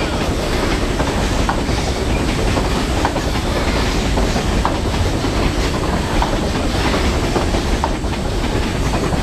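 Freight train rolling past: a steady deep rumble of steel wheels and covered hopper wagons, with scattered wheel clicks over the rails. A GE C30 diesel locomotive runs in the middle of the train as distributed power.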